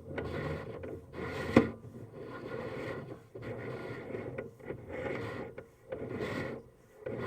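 Sewer inspection camera's push cable rubbing and scraping as it is fed along the pipe, in uneven spells with short pauses and a sharp knock about a second and a half in.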